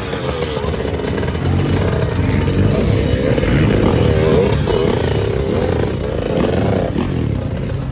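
Dirt bike engine running, its pitch wavering up and down with the throttle.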